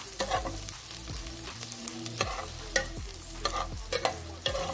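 Sliced onion and garlic sizzling in hot oil as they are sautéed in a speckled coated pot, with a spatula scraping and stirring through them in irregular strokes about every half second to a second.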